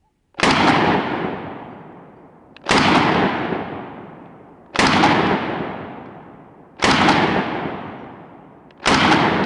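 Calico M-950 9mm pistol firing five single shots, evenly spaced about two seconds apart. Each crack trails a long echo that fades away.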